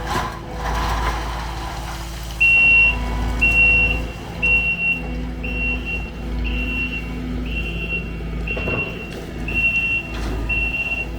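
A reversing vehicle's backup alarm beeping about once a second over its running engine, with a couple of short knocks in the last few seconds.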